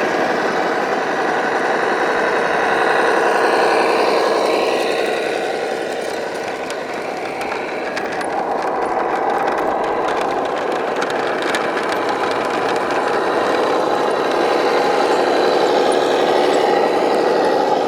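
Radio-controlled model construction vehicle running under load: a steady whine of electric motor and gears with an engine-like drone. The pitch sags and the sound dips a little about six seconds in, then picks back up.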